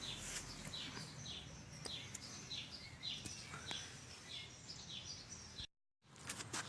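A bird calling a repeated series of short, falling whistled notes, about two a second, over steady outdoor background noise, with a few faint clicks. The sound drops out briefly near the end.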